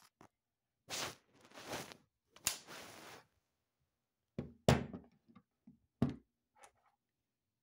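Handling noise on a wooden tabletop as the airgun revolver and its parts are moved. Scraping and rustling in the first half, then a run of dull thunks and knocks, the loudest a little past the middle.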